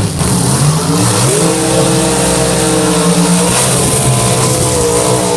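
Race car engine revving up over the first second or so and held at high, fairly steady revs, with a brief dip partway through, then dropping off at the end.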